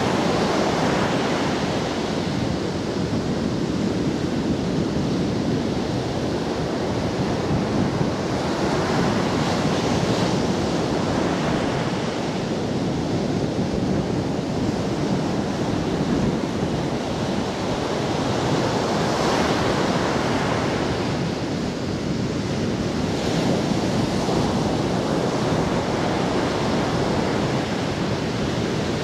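Ocean surf breaking on a sandy beach: a continuous rush of waves that swells and eases every several seconds as each line of breakers comes in.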